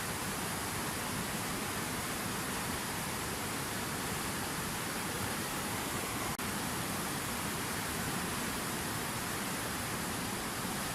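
Water from a fountain waterfall falling and splashing in a steady, even rush, with a momentary break about six seconds in.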